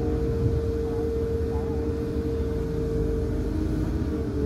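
Cat 320 hydraulic excavator's diesel engine running under load with a steady hydraulic whine as the bucket is drawn up the dirt slope.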